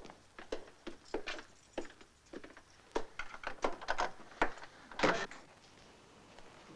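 Hurried footsteps and a door being opened and shut: a run of sharp, irregular knocks and clicks, ending in a louder bump about five seconds in.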